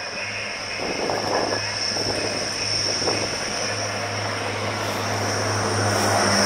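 Class 180 Adelante diesel multiple unit approaching and running past: its diesel engines give a steady low hum with a steady high whine above, growing louder near the end as the train goes by.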